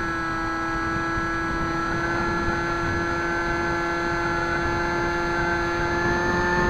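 Electric motor and pusher propeller of a Bixler foam RC plane in flight, heard from its onboard camera: a steady whine made of several tones over wind rumble on the microphone, rising slightly in pitch and level near the end.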